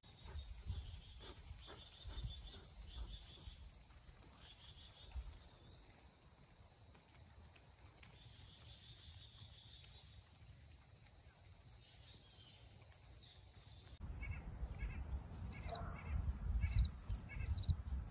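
Steady high-pitched chorus of late-summer insects, with short high chirps now and then. About two-thirds of the way through the chorus cuts off, leaving a low rumble on the microphone and scattered short chirps.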